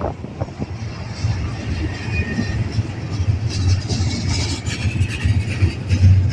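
Freight train rolling past: a steady low rumble of wheels on the rails, with higher-pitched screeching and hissing from about three and a half seconds in.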